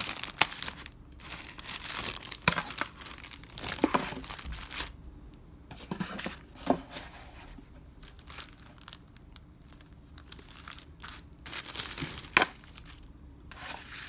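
Plastic and paper packaging crinkling and rustling in irregular bursts as the audio cable is taken out of its wrapping, with a few sharp clicks and snaps.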